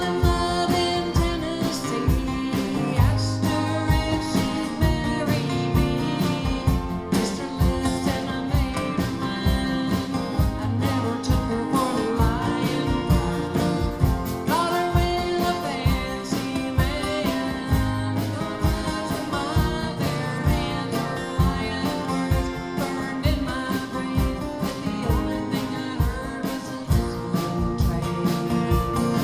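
Live acoustic country song: a woman singing over several acoustic guitars playing a steady strummed rhythm.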